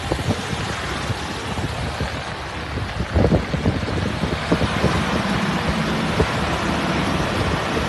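A motor vehicle's engine runs amid a steady rush of wind and road noise, with a few thumps about three seconds in. A steadier low engine drone sets in from about five seconds.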